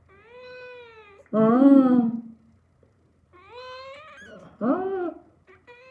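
Domestic cat meowing several times in a row, drawn-out calls that rise and then fall in pitch, some louder and lower than others.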